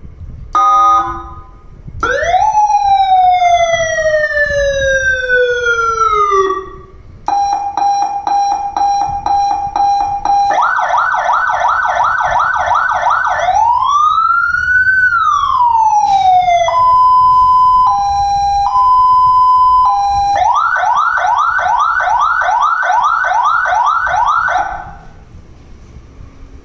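Electronic siren from a TLMAX LED light bar's built-in speaker, switched through its tones: a short beep, a long falling tone, a steady pulsing tone, a fast yelp, one rising-and-falling wail, a two-tone hi-lo, then the fast yelp again before it stops near the end.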